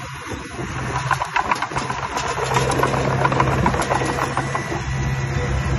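Diesel engine of a construction machine running steadily, with many short metallic rattles and clicks.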